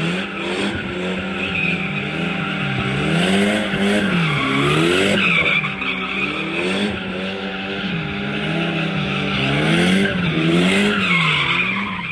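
A car drifting in circles with tyres screeching steadily and its engine revving up and down over and over, about once a second.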